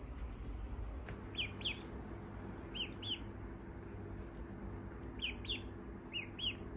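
Ducklings peeping: about eight short, high, falling peeps, mostly in quick pairs, over a faint steady hum.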